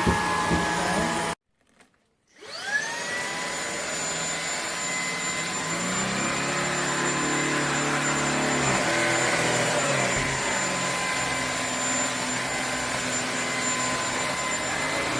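Cordless stick vacuum, the Shark Stratos, running with a steady motor whine. The sound drops out for about a second, then the motor starts and spins up to a steady high whine with a rushing air noise.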